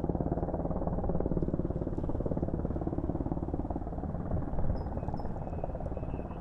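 Helicopter overhead, its rotor beating at a steady rapid pulse.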